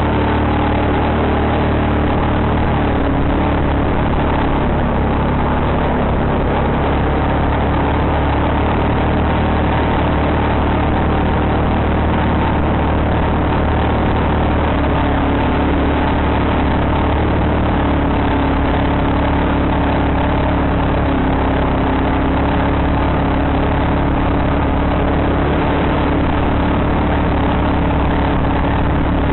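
ATV engine running steadily under way, its pitch shifting only slightly.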